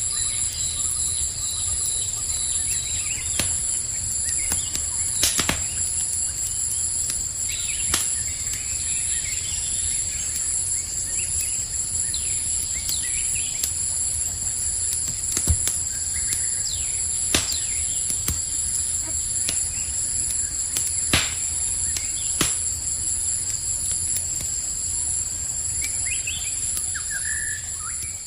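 Campfire crackling, with a sharp pop every few seconds, over steady high-pitched insect chirring and a few bird chirps.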